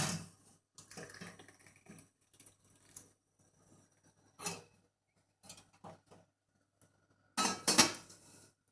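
Dishes and cutlery clattering and clinking in a string of separate knocks, the loudest cluster near the end.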